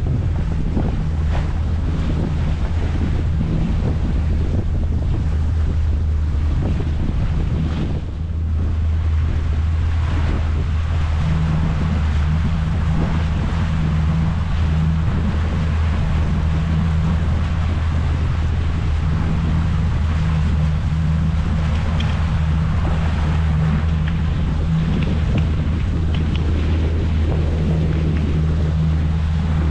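Wind buffeting the microphone and water rushing past the hull of a sailboat under way, over a steady low drone.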